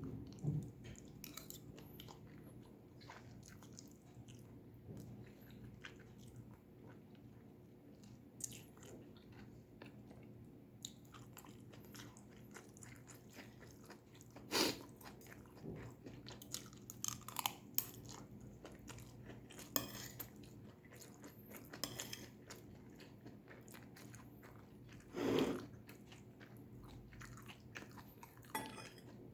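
Close-miked chewing and crunching of stir-fried vegetables, with many small clicks and two louder crunches about 15 and 25 seconds in.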